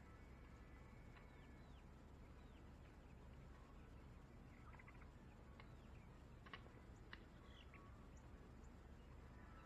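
Near silence: a faint low outdoor rumble with scattered faint bird chirps and a couple of light knocks a little past the middle.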